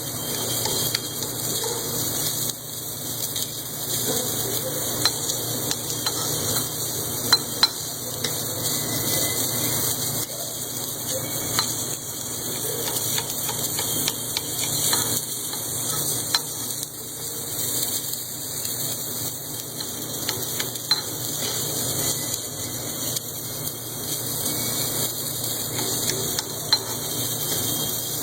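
Automated crankshaft journal repair equipment running: a steady hiss with a few short sharp clicks.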